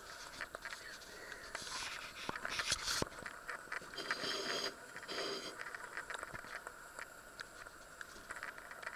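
A metal fork cutting into a slice of cake and scraping on a china plate: several soft scrapes and light clicks, including two short scrapes about four and five seconds in.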